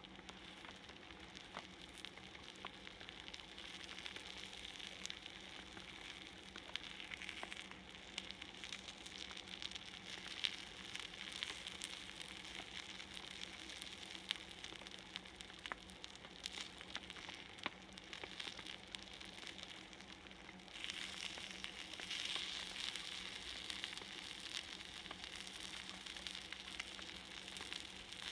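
Salted mackerel sizzling on a hot iron griddle: a steady frying hiss with scattered crackling pops, growing louder about three quarters of the way through.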